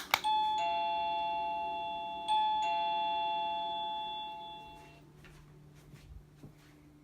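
Augreener battery-free wireless doorbell: a loud click of its self-powered push button, then the receiver's soft two-note ding-dong chime, high note then low. The chime sounds twice, the second about two seconds after the first, and both ring on and fade out about five seconds in.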